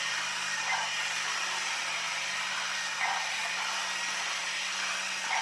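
Haynes HM04R transparent model four-cylinder engine turning over on its small battery-powered electric motor, with a steady whir and hum of motor and plastic gears. The mechanism is stiff-turning and its motor pinion gear is split.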